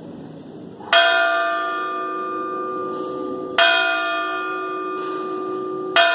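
A bell struck three times, about two and a half seconds apart, each stroke left to ring on and slowly fade. It is rung at the elevation during the consecration of the Mass.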